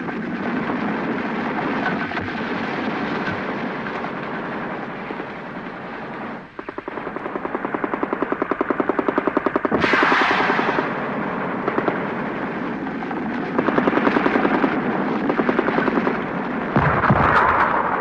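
Battle sounds: a steady rumble of combat, then long rapid bursts of machine-gun fire. Heavy blasts from explosions come about ten seconds in and again near the end.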